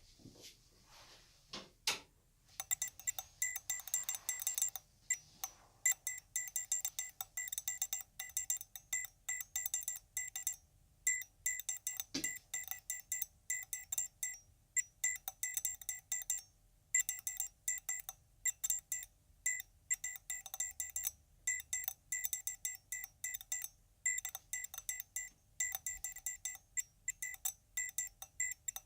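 Electronic alarm beeping: short, high-pitched beeps repeated rapidly, several a second, in uneven runs with brief pauses, starting a couple of seconds in.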